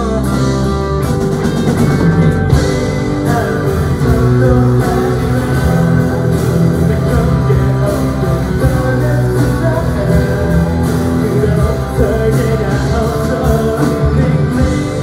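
Live rock band playing: acoustic and electric guitars, keyboards and drum kit, with a male voice singing the lead.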